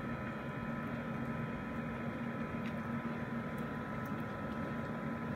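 Heavy rain pouring down in a squall, a steady even hiss of falling rain, with a steady low hum beneath it.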